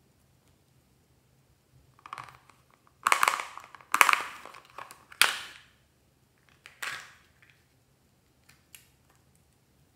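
Hard plastic crunching and rattling from a small plastic toy being handled: four or five loud crunching bursts about a second apart, each fading quickly, then a couple of light ticks near the end.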